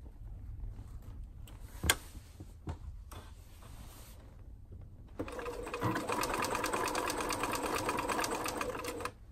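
Bernina 1230 sewing machine, badged Riccar RCM 1230, stitching through fabric at a fast, even rate for about four seconds. It starts about five seconds in and stops abruptly just before the end. Earlier there are only a few quiet handling sounds and one sharp click about two seconds in.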